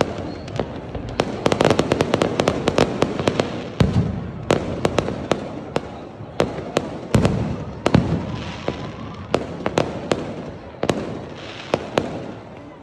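Aerial fireworks going off: a rapid string of sharp cracks and crackles, densest in the first few seconds, with a few deeper booms mixed in.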